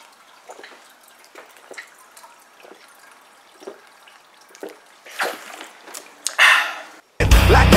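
A person gulping a drink from a plastic bottle, soft swallows about once a second, followed by a loud breathy gasp as the bottle comes down. Loud rock music cuts in suddenly near the end.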